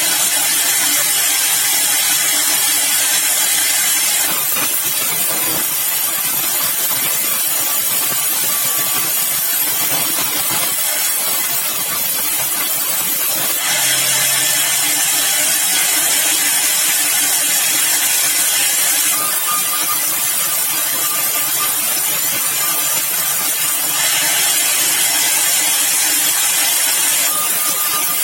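Sawmill saw running steadily and cutting yellow balau timber, a loud hissing noise over a low machine hum. The hiss rises and falls in level every few seconds.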